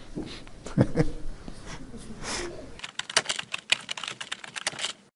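Faint room sound with a brief soft vocal sound about a second in. Then, from about three seconds in, a rapid run of computer-keyboard typing clicks: a typing sound effect for a web address being entered into a search bar.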